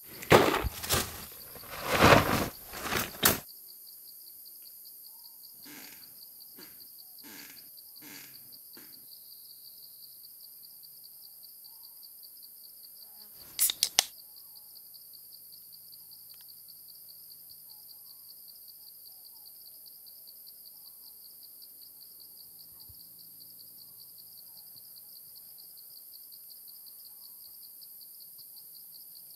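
Steady chorus of insects trilling with a fast pulse throughout. Near the start, several loud crunching footsteps of a leather boot on dry leaves, with softer steps a few seconds later. About 14 seconds in, a beer can's tab is snapped open with a quick double crack.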